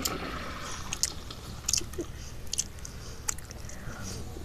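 A person chewing a jelly bean, with scattered small mouth clicks.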